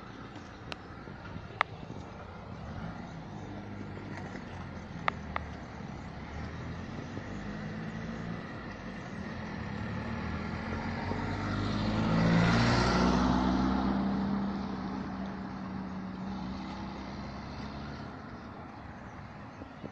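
A motor vehicle drives past: engine hum and tyre noise build to a peak about twelve seconds in, then fade away. A few sharp clicks come in the first six seconds.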